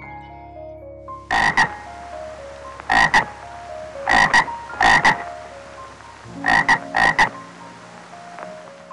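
White's tree frog croaking in short, loud croaks, mostly in pairs. About six bursts come over some six seconds, starting about a second in. A soft melody of held notes plays underneath.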